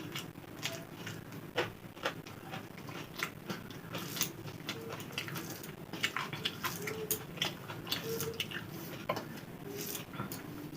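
A person chewing and eating rice and mashed potato: irregular soft mouth clicks and smacks, several a second.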